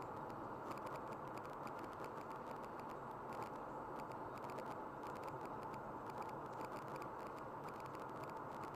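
Steady road and engine noise inside a car cruising at motorway speed, with faint irregular ticking over it.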